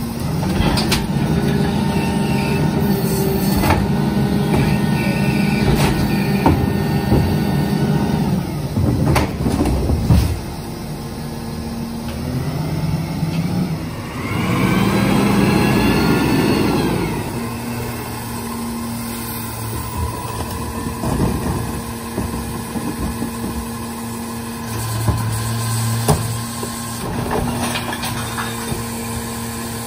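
New Way rear-loader recycling truck working a collection stop: the engine is held at raised revs to drive the hydraulic cart tipper, with bangs and clatter as a cart is dumped about nine seconds in. Midway the engine rises and falls in speed, then drops to a lower hum and revs up again near the end as another cart is tipped.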